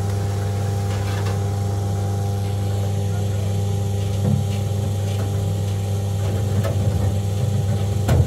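An engine running steadily at idle, a constant low hum, with a few brief knocks or bumps over it about four seconds in and near the end.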